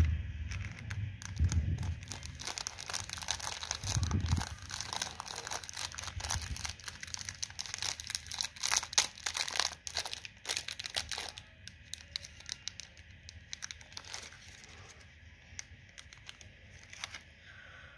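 Small plastic jelly sweet packet crinkling as it is handled and torn open, with dense crackling for the first ten seconds or so and then sparser crinkles as the jellies are shaken out. A few dull knocks come in the first few seconds.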